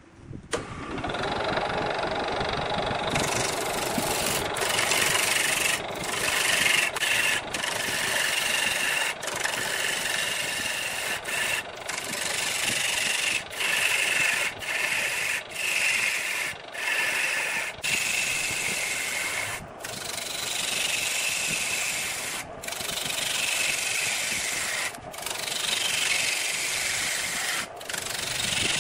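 Wood lathe turning a large rough log while a hand-held turning tool roughs it round: a steady, loud scraping cut with flying chips, starting about half a second in and broken by brief dips every second or two.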